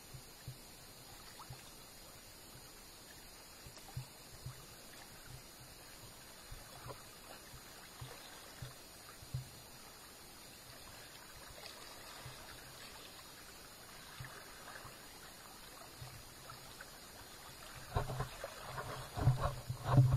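River water trickling and splashing with scattered light knocks, and a louder stretch of splashing and sloshing near the end.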